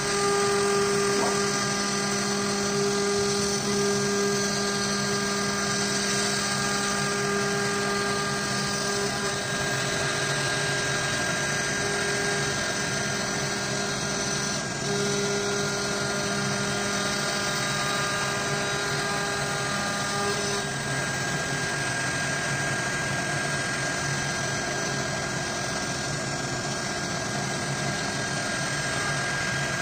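Avid CNC router's spindle running while its small end mill cuts into a wooden board: a steady whine over a continuous cutting noise. Some of the steady tones drop out about twenty seconds in.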